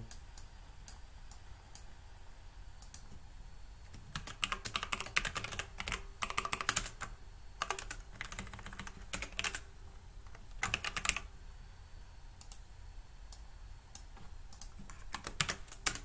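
Computer keyboard typing in bursts of rapid key presses, with single keystrokes between them: a password being entered. The longest run of typing comes about four to seven seconds in, and a last quick burst comes near the end.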